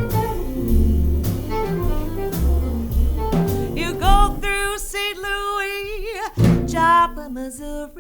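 Jazz combo playing: saxophone lines over a plucked double bass and drum kit, then a singer comes back in about halfway with a wavering vibrato.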